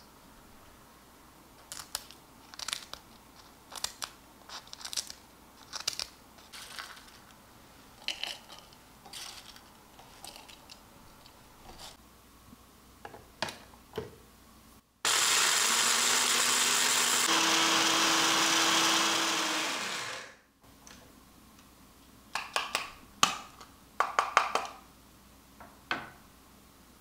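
Dry banana peels crackling and clicking as they are broken up and handled, then a Tefal electric grinder runs for about five seconds, grinding the peels to powder, its motor pitch stepping up about two seconds into the run. A few more clicks and taps follow as the grinder jar is handled.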